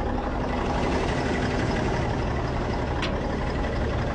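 Semi truck's diesel engine running steadily, with a single short click about three seconds in.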